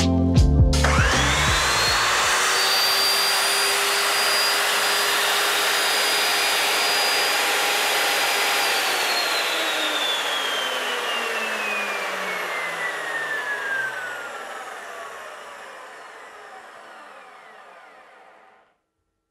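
Evolution S355CPS 355 mm metal-cutting chop saw with its 2200 W motor switched on and running free without cutting. The whine rises to a steady high pitch within about a second and holds for about eight seconds. The saw is then switched off, and the pitch falls steadily as the blade coasts down for about ten seconds until it fades out.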